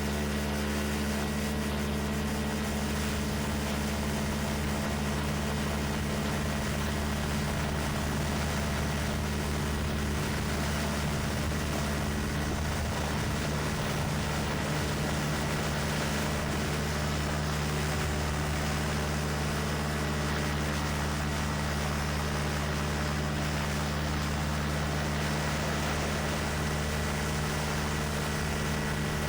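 Quicksilver MXL II ultralight's two-stroke engine and pusher propeller running at a steady, unchanging power setting.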